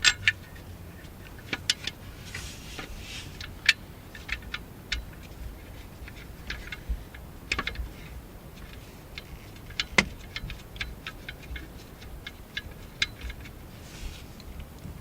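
Hand tools working on bolts: a socket ratchet clicking in short runs and metal parts clinking, with a sharper metallic clink about ten seconds in.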